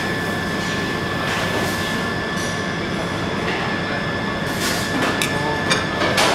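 Steady fan-like background noise of a kitchen, with a faint steady high whine running through it. A few light clicks come near the end.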